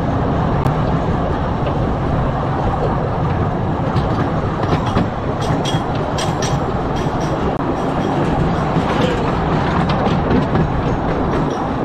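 Small park railway train running along its track: a steady rumble of wheels on rails, with irregular clicks and clacks over the rail joints.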